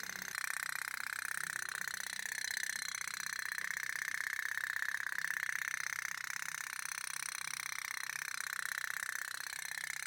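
Toy pop-pop steam boat running, its wick-heated boiler putting out a fast, steady pop-pop pulse.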